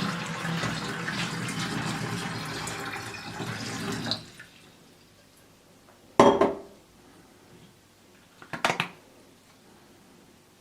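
Liquid pouring for about four seconds, then stopping abruptly, typical of water run through a kitchen funnel. Afterwards come two sharp knocks about two seconds apart, the first the louder.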